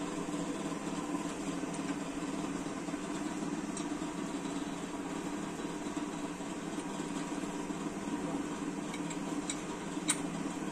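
Steady mechanical background hum, with a few faint clicks of hand tools on an engine's flywheel housing; the sharpest click comes near the end.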